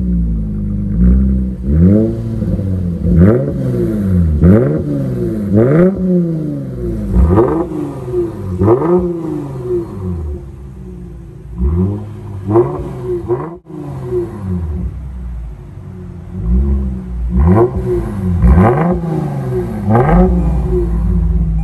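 2021 Lexus IS 350 F Sport's 3.5-litre V6, blipped up from idle about a dozen times through a Kinney's Street Demon performance exhaust with quad tips. Each rev rises sharply and falls back.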